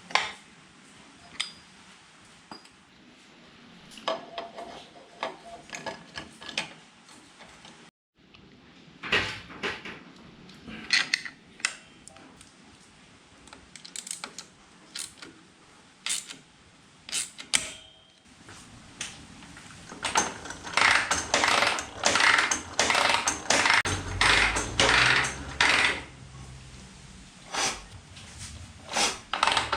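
Metal tools and parts clinking and clattering in irregular handling, with a busier run of clacks past the middle and a short break about eight seconds in.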